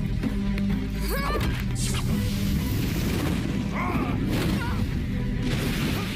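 Dramatic film score with action sound effects: crashes, booms and whooshes, with a few short vocal grunts.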